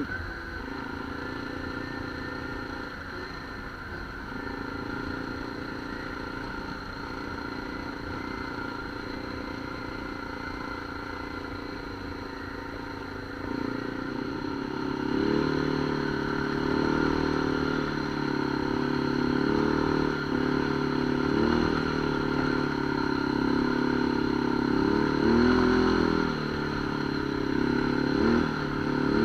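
Off-road vehicle engine running under way, steady at first, then louder from about halfway through, its pitch rising and falling repeatedly as the throttle is worked.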